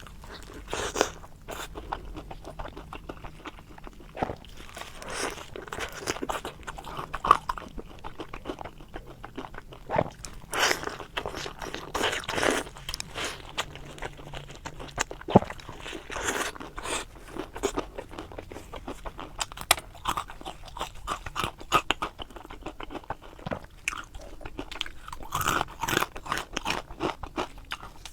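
Close-up biting and chewing of deep-fried stuffed eggplant boxes (qie he), the fried batter crust crunching in irregular bursts of sharp crackles between chewing.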